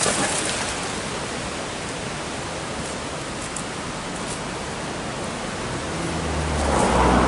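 Steady rushing of water pouring over a weir, with a low rumble building near the end.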